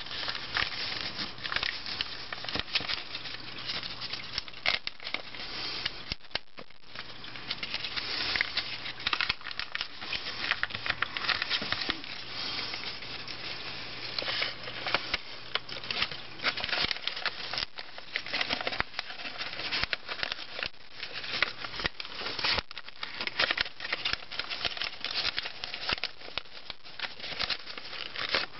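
A sheet of white paper rustling and crinkling as it is folded and creased by hand into a paper boat, with many short sharp crackles as the folds are pressed.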